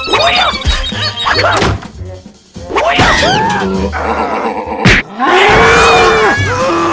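Cartoon sound effects over background music: several arching whistle-like pitch glides, thunks and a few sharp hits, with a long wavering held tone starting about five seconds in.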